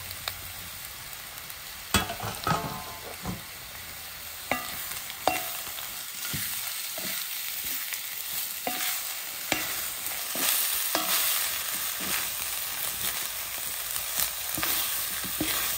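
Flat spatula stirring sweet potato pieces and grated coconut in an iron kadai over a low sizzle, with irregular scrapes and knocks against the pan. The stirring gets busier from about five seconds in.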